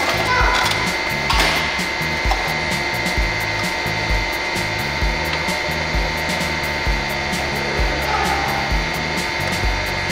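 Background music with a steady beat a little faster than once a second. About a second and a half in there is a brief metallic clink from stainless steel plates being stacked on the press anvil.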